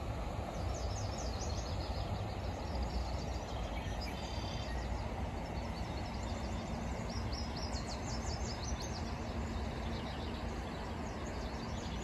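River water flowing steadily over a shallow, rocky bed, a constant rushing. A bird calls over it in short bursts of rapid high chirps, several times.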